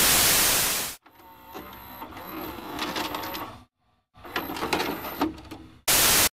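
Loud TV static hiss that cuts off after about a second. It gives way to quieter mechanical clicking and whirring, which stops briefly midway and resumes. A short burst of static closes it.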